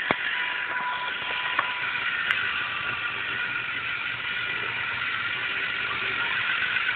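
LEGO Mindstorms NXT robot's servo motors and gear trains whirring steadily as it drives across a tiled floor, getting a little louder near the end as it comes closer, with a few sharp clicks in the first couple of seconds.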